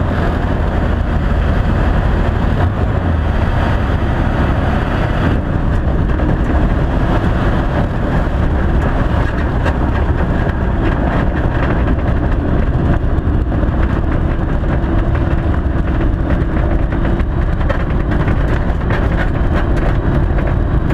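Ikarus C42 microlight's engine and propeller running steadily with rushing air noise, heard from the cockpit, as the aircraft rolls out after a crosswind landing.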